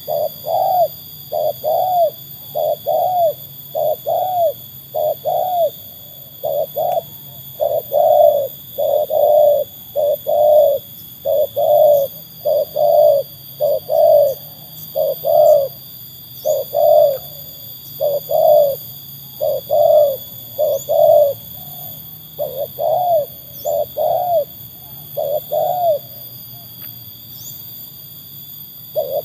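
Spotted dove (tekukur) cooing in a long run of quick repeated phrases, each note a short arched coo, stopping briefly near the end.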